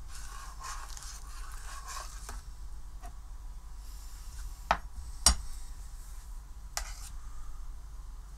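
A metal ladle stirring thick tomato soup in a stainless steel pot: soft liquid swishing for the first couple of seconds, then a few sharp clinks of the ladle against the pot, the loudest about five seconds in.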